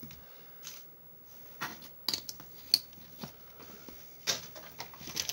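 Hands handling foil booster packs, a card and small metal pieces on a playmat: soft rustling with scattered sharp clicks and taps, the sharpest a little past two seconds in and again about four seconds in.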